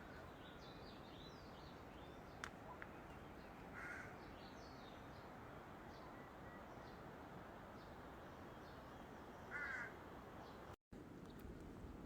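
Faint outdoor ambience: a steady low hiss with scattered small bird chirps, and two short, harsh bird calls, one about four seconds in and one near ten seconds. The sound cuts out for a split second near the end.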